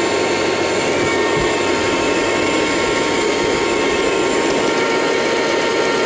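Miele Scout RX2 robot vacuum cleaner running steadily, its suction fan and brushes whirring with a steady whine, as it sweeps along a skirting board.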